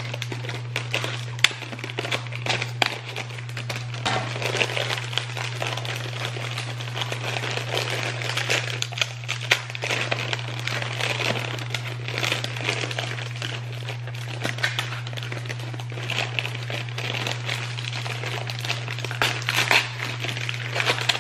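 Thin plastic bag crinkling and rustling as it is cut open and hands dig into it, with many small sharp crackles, over a steady low hum.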